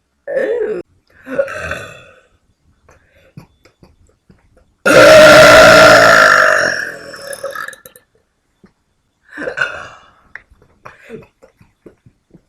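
Deliberate burps: two short ones in the first two seconds, then one long, loud burp about five seconds in that lasts some two and a half seconds, followed by a few fainter short sounds.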